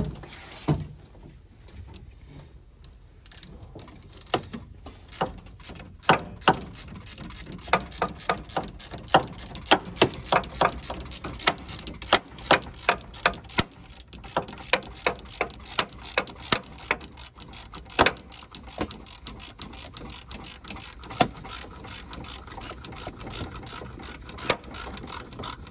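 Swivel-head hand ratchet clicking in short, irregular runs as it turns out a small bolt, starting a few seconds in, with some clicks much louder than others.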